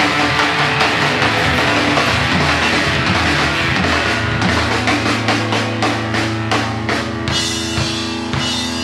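Live rock band with electric guitar, electric bass and drum kit playing loudly. About halfway through the full groove gives way to a held, ringing chord under a run of evenly spaced drum hits, about three a second.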